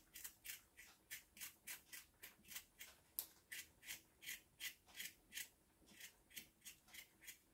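Kitchen knife scraping the skin off a young potato in short, faint strokes, about three a second. The skin comes off poorly on this potato.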